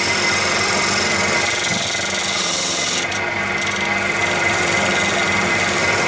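A VFD-driven wood lathe running with a steel turning tool cutting into the spinning wood: a steady scraping, rasping cut over the motor's hum. The cut lightens for about a second around three seconds in, then resumes.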